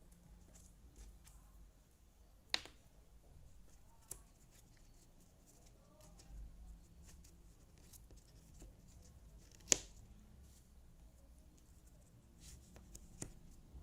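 Cardboard jigsaw puzzle pieces being handled and pressed into place, with a few separate sharp clicks over a low room hum. The loudest click comes near the end of the first ten seconds.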